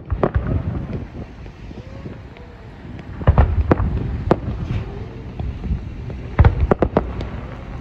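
Aerial fireworks shells bursting with sharp bangs: one just after the start, a quick cluster of three about three to four seconds in, and another cluster near the end, over a continuous low rumble.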